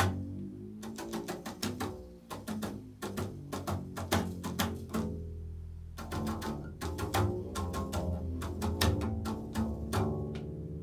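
Upright double bass played pizzicato: an improvised run of plucked low notes, with one note left ringing for about a second a little past the middle before the plucking picks up again.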